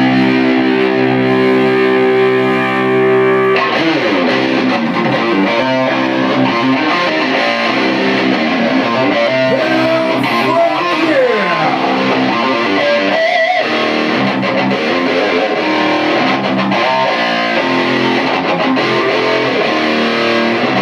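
Electric guitar playing: one chord held for about the first three and a half seconds, then a run of changing notes with slides and bends.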